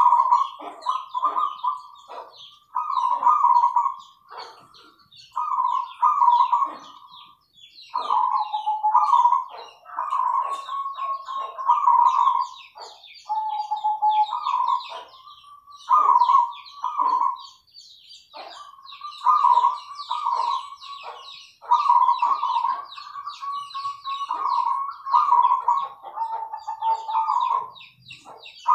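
Zebra doves (perkutut) singing: their rolling coo phrases repeat one after another, every second or two, with short pauses between. Dense, high, fast chirping runs over them throughout.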